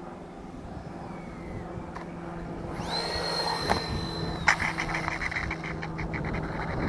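The twin 80 mm electric ducted fans of a Freewing A-10 RC jet whining high on landing approach, a knock as it touches down, and the whine cutting off about a second and a half later with a louder knock. A fast, even rattle follows as the wheels roll along the runway.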